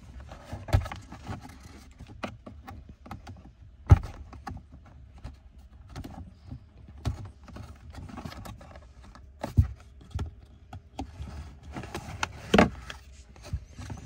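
Scattered plastic clicks, knocks and rustling as a hand works a cabin air filter out of its housing behind a car's glovebox. Four sharper knocks stand out, the loudest about four seconds in.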